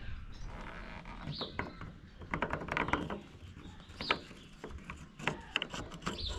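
Light plastic and metal clicks and taps as fingers work the lock cylinder loose from a Smart 453's outer door handle, in irregular clusters. A bird chirps a few times in the background.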